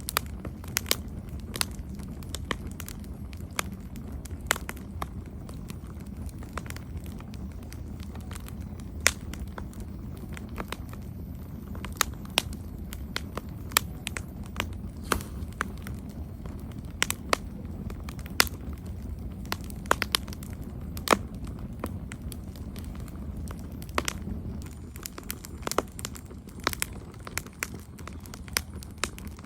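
Wood campfire burning, with a steady low rumble of flames and frequent sharp, irregular crackles and pops from the burning wood.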